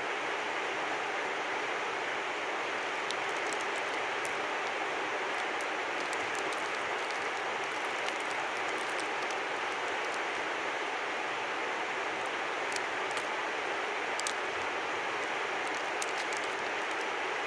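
A river flowing steadily, an even rushing sound with faint light ticks scattered through it.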